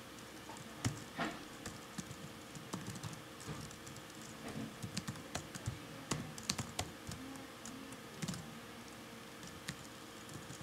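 Computer keyboard being typed on slowly: scattered, irregular single keystrokes with uneven pauses between them.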